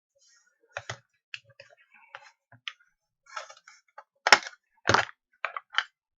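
Plastic case parts of a burglar alarm sensor being handled: a scatter of small clicks and taps, with two louder knocks a little after halfway.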